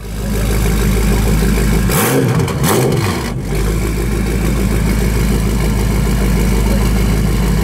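BMW M5's twin-turbo V8 through an Akrapovic exhaust, idling. About two seconds in it is revved twice in quick succession, each blip rising and falling within about half a second, then it drops back to a steady idle.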